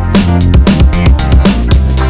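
Background music: electronic track with a strong bass line and a steady drum beat.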